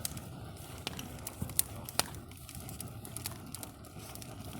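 Wood campfire burning, crackling with a few sharp, irregular pops.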